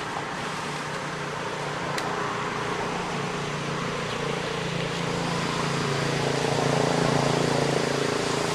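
A motor vehicle's engine droning steadily, growing louder to a peak about seven seconds in, then easing off.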